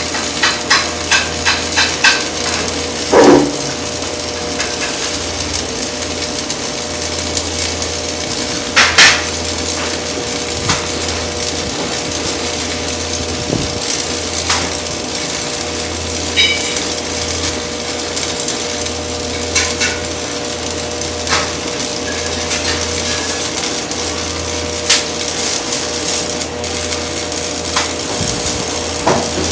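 Workshop noise: a steady machine hum with scattered metal clanks and knocks, and a quick run of ticks at the start.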